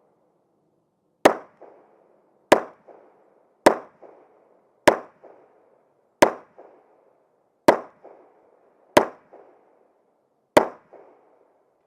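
Eight slow, deliberate handgun shots, one every second and a half or so, each followed by a fainter crack about a third of a second later.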